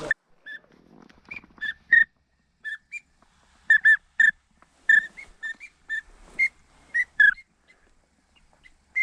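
A duck whistle call blown in about twenty short, high peeps at an uneven pace, some in quick pairs, imitating teal or wigeon whistles to draw ducks in.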